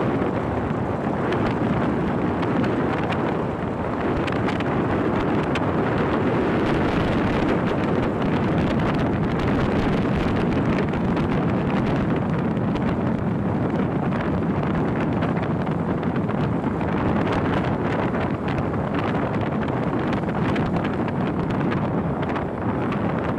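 Steady wind rush on the microphone of a phone carried on a motorcycle at speed, with the engine and road noise blended underneath.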